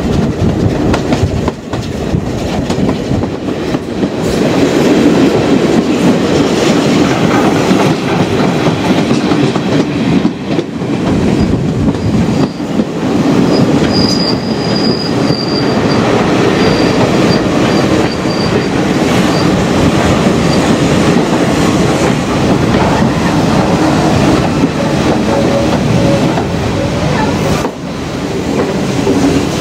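Heritage railway carriage running on the rails, its wheels clattering, heard from an open carriage window. About halfway through a high, thin squeal comes and goes for several seconds as the train slows into a station platform.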